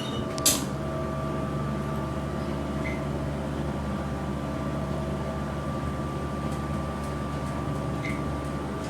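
Steady mechanical hum inside a Dover elevator car during the ride, with a single sharp click about half a second in.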